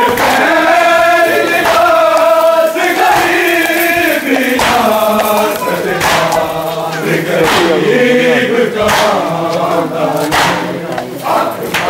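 A crowd of men chanting together in drawn-out phrases, a Shia mourning chant in a procession with the Zuljanah horse.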